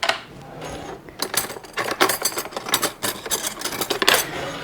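A kitchen utensil working rapidly against a bowl or board, a quick run of short scraping taps about four or five a second.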